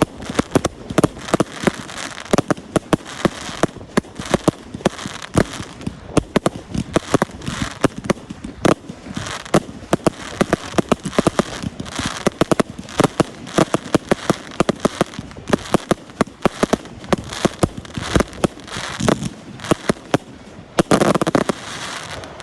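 Fireworks display finale: a rapid, continuous barrage of bangs and crackling, several reports a second, with a denser crackling burst near the end before it stops.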